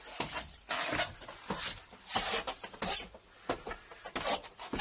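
Footsteps and clothing rustle of a person walking down a stairway, in irregular scuffing bursts about every half second to second.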